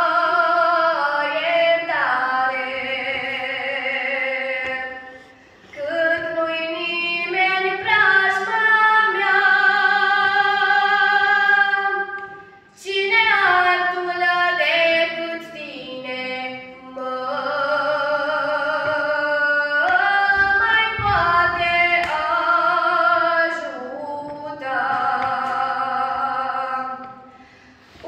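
A woman singing a priceasnă, a Romanian Orthodox devotional song, into a microphone: long held, ornamented notes in phrases, with short breaks for breath between them.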